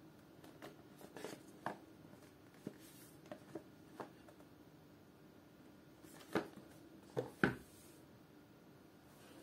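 Small cardboard product boxes handled by hand: light taps and scrapes as they are turned over, then a few louder knocks about two-thirds of the way through as the boxes are set down on the table.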